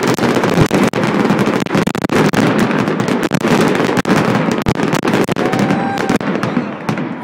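Aerial fireworks going off in a dense finale barrage: continuous rapid crackling and popping with many sharp bangs mixed in.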